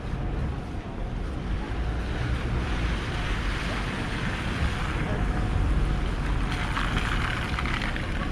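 Steady hiss of heavy rain with wind buffeting the microphone as a low rumble underneath.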